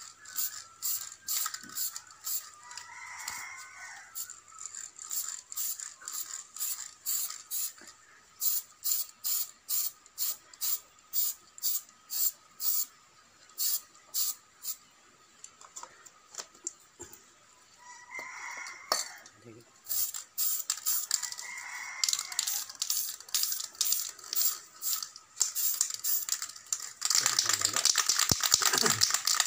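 Aerosol spray-paint can sprayed in many short bursts of hiss, about two a second, with a longer, denser spray near the end.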